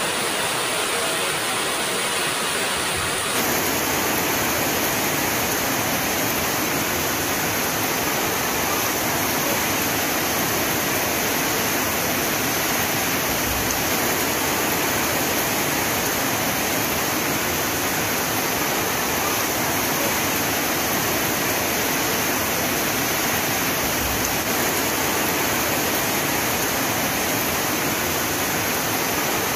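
Heavy rain falling as a steady, dense hiss, its tone shifting abruptly about three seconds in.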